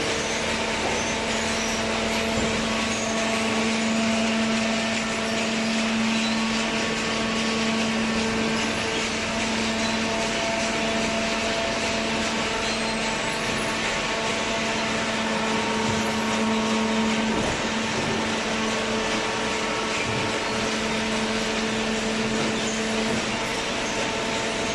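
Hydraulic cardboard baler running: the steady hum and whine of its electric motor and hydraulic pump over a constant mechanical noise, with no break.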